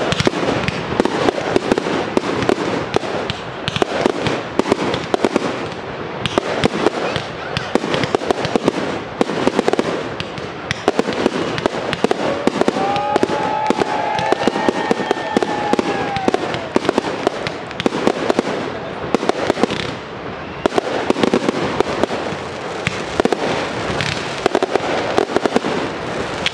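Fireworks display: a dense, continuous barrage of shell bursts, bangs and crackling. A brief held tone rises and falls about halfway through.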